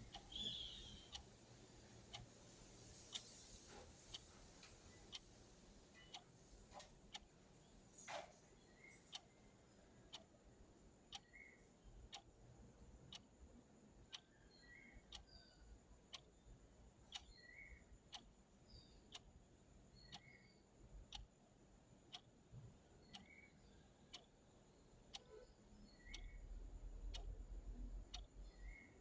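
Clock ticking steadily and faintly, about two ticks a second. Near the end a low rumble joins it for a couple of seconds.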